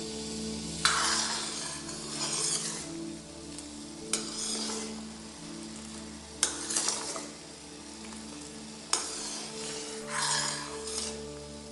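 A ladle stirring a pot of sugar-and-herb cough syrup as it boils down and thickens: four sharp clinks against the pot, each followed by about a second of scraping and stirring.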